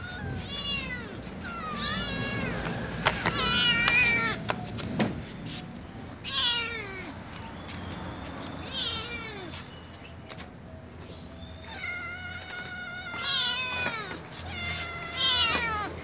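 Young cats meowing over and over, begging for food: short meows in several runs and a longer drawn-out meow about twelve seconds in. A few sharp clicks sound around three to four seconds in.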